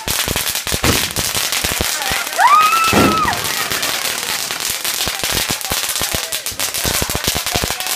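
Fireworks crackling and popping in a dense, rapid stream. About two and a half seconds in, a brief high tone rises, holds and falls.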